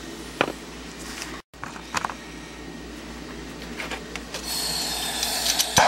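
A few clicks and clanks of tools being handled, then the hiss of a hose-fed gas soldering torch being opened, lit with a pop near the end and burning steadily.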